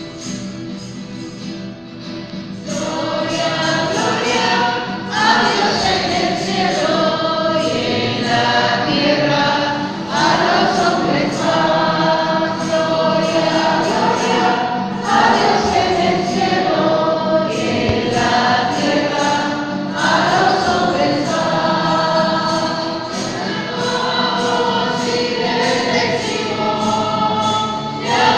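A choir singing a religious hymn with musical accompaniment. It is softer for about the first two seconds, then fuller and louder.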